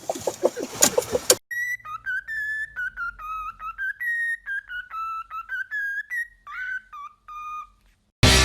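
A tune whistled in one clear, high tone that steps and slides between notes in short phrases, lasting about six seconds. It is preceded by a second or so of louder noisy sound, and music cuts in near the end.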